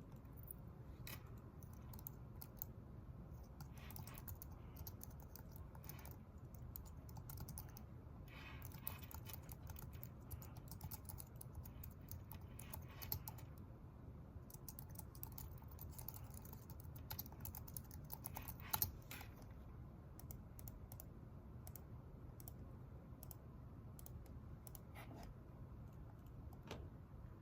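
Faint typing on a computer keyboard in bursts of quick key clicks with short pauses between, over a steady low room hum.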